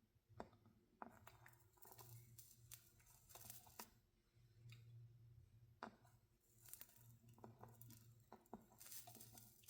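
Soldering iron at 410 degrees melting Canfield solder along stained glass seams coated with Tiger Eye gel flux: faint sizzling in short spells, with scattered small clicks and a low steady hum underneath.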